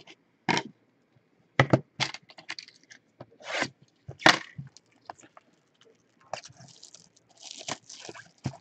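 Cardboard trading-card box being opened and handled: a handful of sharp knocks and clicks, then rustling and tearing of packaging over the last couple of seconds.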